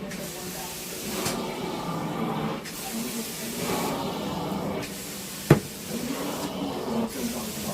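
Carpet-cleaning extraction machine running with a steady spraying hiss that swells and fades in waves, with one sharp click about five and a half seconds in.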